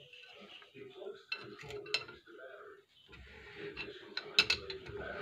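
Sharp metallic clinks and taps of a screwdriver and hands against the steel drum of a rear drum brake, a few about a second and a half in and a louder pair near the end.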